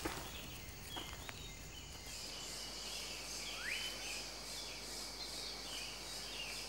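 Tropical rainforest ambience: a steady high insect drone with short bird chirps, and one rising bird whistle about halfway through.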